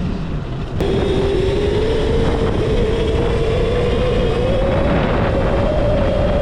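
Whine of a modified Razor MX650 electric dirt bike's 11,000-watt brushless hub motor under throttle, starting after a sharp click about a second in and rising slowly in pitch as the bike gathers speed, over a steady low rumble.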